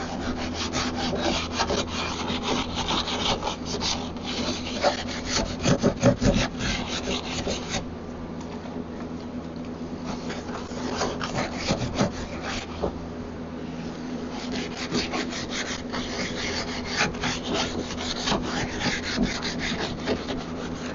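Rag being scrubbed hard over a wooden cabinet's finish with cleaner: a rapid, scratchy rubbing of quick back-and-forth strokes that eases off for a few seconds midway.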